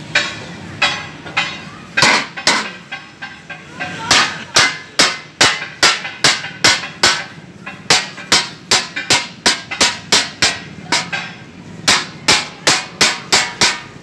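Hammer blows striking sheet steel in a steady run, about two a second, quickening to about three a second in the second half, each with a short metallic ring.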